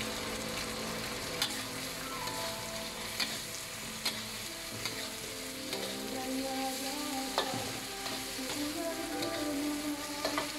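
Prawns, sliced onion and a freshly cracked egg sizzling in a wok over a gas burner while being stir-fried with a metal spatula, which clinks and scrapes against the wok a few times.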